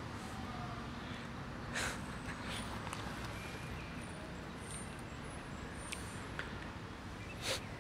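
Steady low rumble of street traffic, with a brief rustle or scrape about two seconds in and another near the end.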